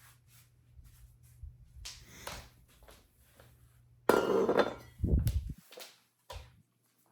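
Hard objects being handled: scattered clicks and light knocks, a loud clatter about four seconds in, then a heavy thump, over a faint low hum.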